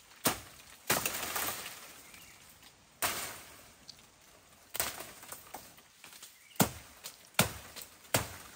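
About seven sharp chopping knocks, irregularly spaced, at the base of a bamboo clump, some followed by a brief rustle of dry bamboo and leaves.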